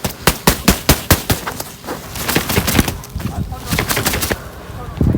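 A rapid series of sharp cracks and knocks, fastest in the first second and a half, then a noisier patch and a few more cracks.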